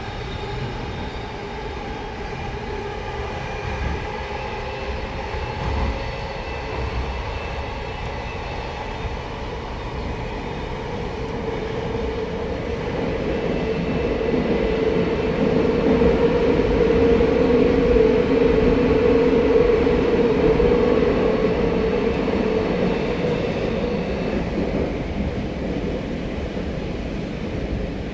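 Tokyo Metro 05 series subway train running between stations, heard from inside the car: wheels on the rails and the steady hum of its permanent-magnet synchronous traction motors. The sound grows louder to a peak about two-thirds of the way through, then eases off.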